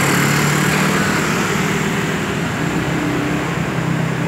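Street traffic: a scooter and then a car passing close by, under a steady low engine hum and road noise.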